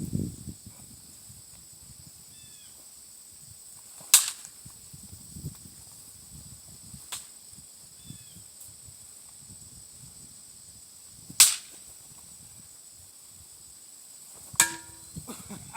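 Archery shots: three loud, sharp cracks several seconds apart, with a fainter one between the first two.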